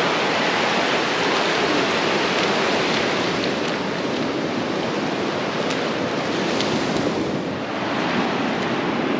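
Surf washing up a sandy beach: a steady rush of small breaking waves.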